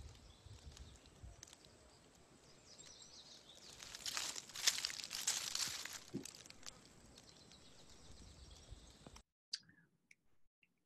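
Dry leaf litter rustling and crunching, louder about four seconds in for a couple of seconds. The sound stops abruptly near the end.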